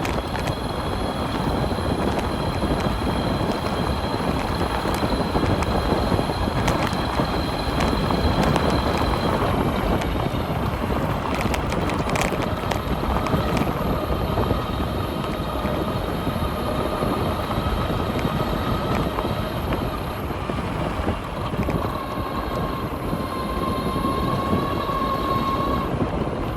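Wind rushing over the microphone and tyre noise as a UBCO electric motorbike rides a dirt farm road at about 30 mph, near its top speed. A thin whine from the electric motor sits on top, a high one that stops about a third of the way through and a lower one that comes in later and shifts in pitch.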